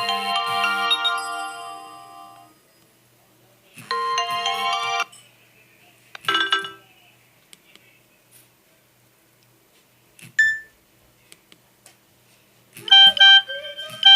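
Nokia 3110 classic mobile phone playing polyphonic ringtones through its small speaker. One melody fades out in the first couple of seconds, and a short snatch of another plays about four seconds in. Two brief blips follow, then a new ringtone of repeated electronic pulses starts near the end.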